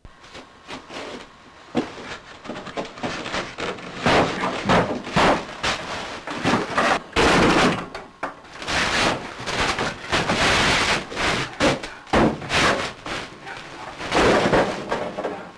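A run of irregular knocks and bangs with rustling and scraping between them, as of wooden boards or a door being struck and handled, with several louder clusters of blows.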